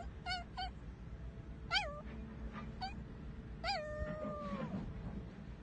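Small dog giving a series of short, high yelps that rise and drop in pitch, about six in all; the one about two-thirds of the way in is drawn out into a long, slowly falling howl.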